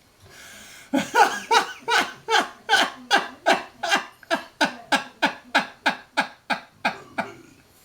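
A man laughing hard in a long, even run of short "ha" pulses, about three a second, that fades over the last couple of seconds.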